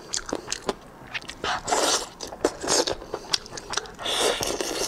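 Close-miked eating of cooked bullfrog legs: wet biting, tearing and chewing in a string of sharp clicks and smacks, with longer crunchy bursts about a second and a half in and again near the end.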